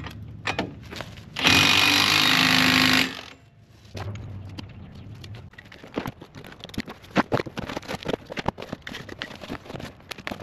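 Cordless impact wrench running in one burst of about a second and a half on the skid steer's track undercarriage. Then a new track wheel is unpacked from a strapped cardboard box: a string of scattered clicks, taps and cardboard rustling.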